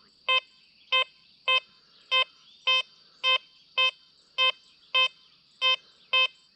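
XP Deus 2 metal detector giving its target tone on a US nickel held close under the coil: a steady series of short, identical low beeps, just under two a second.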